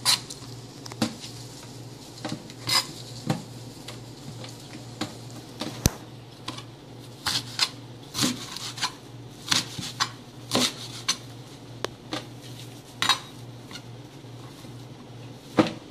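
Kitchen knife cutting squeezed-out crown daisy on a cutting board: scattered sharp knocks at irregular spacing, over a steady low hum.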